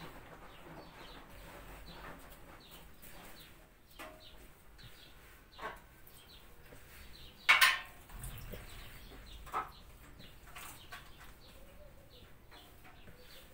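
Hands kneading soft dough in a plastic bowl, with a few sharp knocks against the bowl, the loudest about halfway through. Faint bird calls sound in the background.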